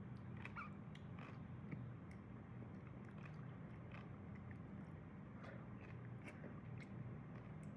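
Passion fruit pulp being scooped out of its shell: faint, scattered soft scrapes and small wet clicks, over a steady low hum.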